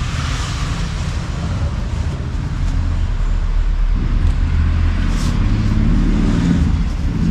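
A motor vehicle engine running steadily, with a low hum that grows a little louder and fuller about four seconds in.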